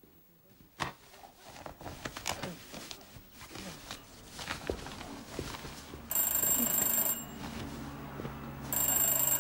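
Knocks and rustling of someone moving about and putting on a coat, then an electric bell rings twice, each ring lasting about a second, with a buzzing hum under it.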